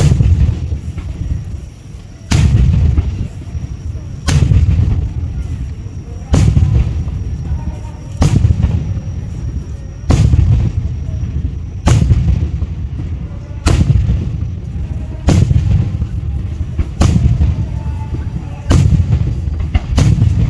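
Aerial firework shells bursting overhead, a sharp boom about every two seconds, each rolling off into a low rumble.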